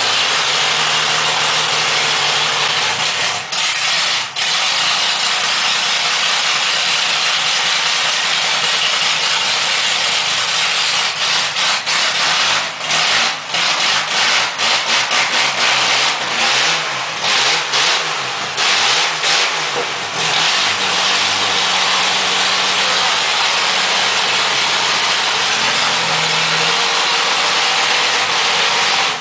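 Chevrolet Opala's naturally aspirated straight-six engine running loud and harsh. The revs rise and dip unevenly through the middle stretch.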